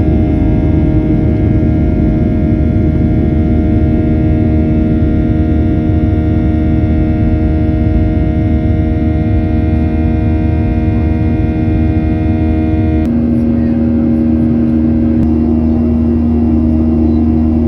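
Boeing 737-800's CFM56 jet engines running steadily: a loud rush under a steady hum with several fixed whining tones. About thirteen seconds in, the hum drops to a lower, stronger tone.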